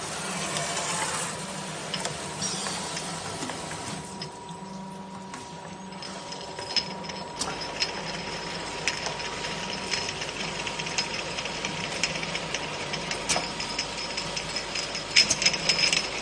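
Automatic rotary bottle-rinsing machine running steadily, with a continuous mechanical hum and rapid clicking and clatter of glass jars being carried through it. The clicking grows denser and louder about halfway through.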